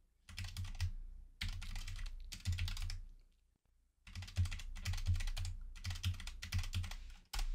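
Typing on a computer keyboard: quick runs of keystrokes, with a pause of about a second midway.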